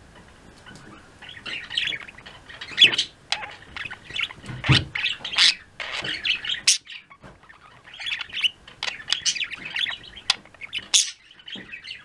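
A flock of pet budgerigars chirping and trilling in quick, overlapping chatter, with a short lull about seven seconds in.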